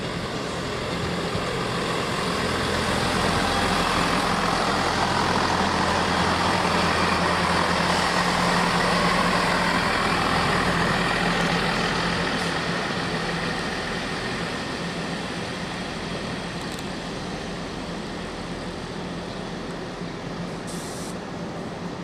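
Class 158 diesel multiple unit running at low speed, its diesel engine running steadily. It grows louder towards the middle and then fades gradually as the unit moves on.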